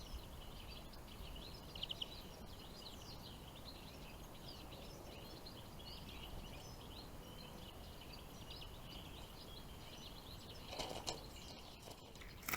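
Faint, dense chirping and twittering of small songbirds, with a short louder noise about eleven seconds in.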